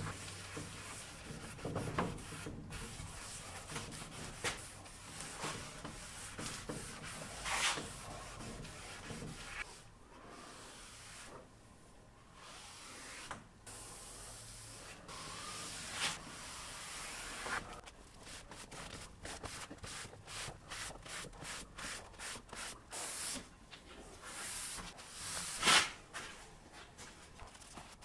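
Cloth rag rubbing gel stain over a wooden chest of drawers, a series of irregular wiping strokes that come quicker and closer together in the later part.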